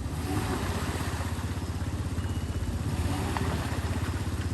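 Off-road vehicle engine running at low speed, a steady low pulsing.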